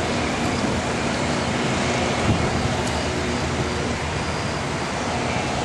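Steady road traffic noise: a continuous low hum and hiss.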